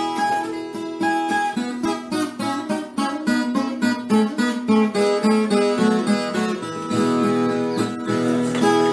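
Background music: a plucked acoustic guitar playing a steady run of notes and strums.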